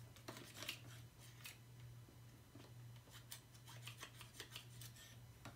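Faint, scattered light clicks and taps of fingers handling the clear plastic cups and parts of an Orbeez maker tray, over a low steady hum.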